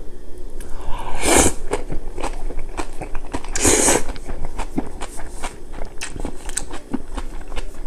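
Close-miked eating: two short slurps of wheat noodles wrapped in kimchi, about a second in and again about three and a half seconds in, then steady wet chewing with many small crunchy clicks.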